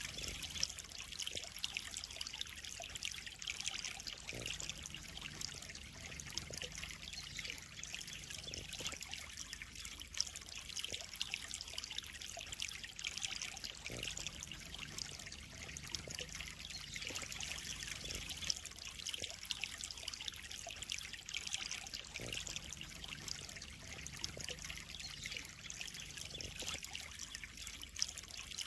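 Steady trickling and splashing of water in a koi pond, with a few faint ticks now and then.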